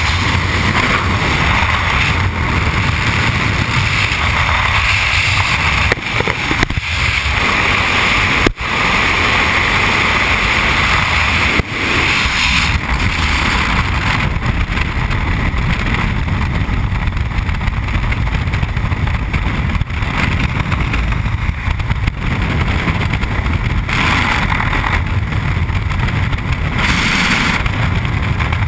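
Loud, steady rush of freefall wind buffeting a skydiver's camera microphone, with a couple of brief dips in the roar about a third of the way in.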